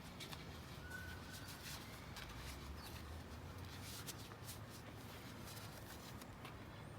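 Faint rustling and scattered light clicks of hands handling equipment, over a steady low hum, with a short high chirp about a second in.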